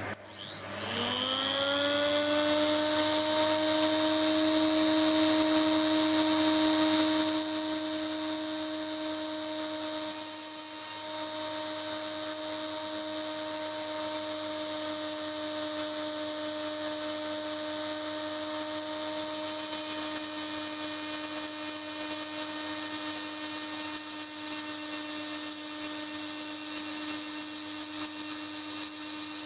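HILDA tool post grinder, a small 400-watt rotary grinder on a metal lathe, spinning up on its lowest speed with a rising whine and then running steadily. It drives a 3 mm carbide ball burr that opens out a brass bore, with the lathe turning. The whine is louder for the first several seconds, then drops and stays lower and steady.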